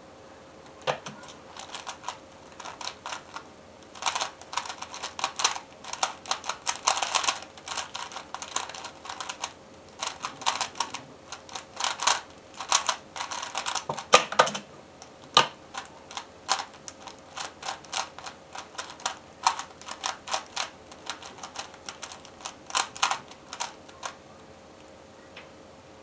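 Plastic 3x3 Rubik's cube being turned fast by hand: a dense clatter of clicking layer turns in quick runs with brief pauses, stopping about two seconds before the end.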